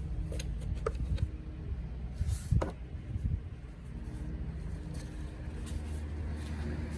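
Light knocks and clatter from the Corolla's plastic engine cover being handled after it is pulled off, with a short squeak about two and a half seconds in, over a steady low hum.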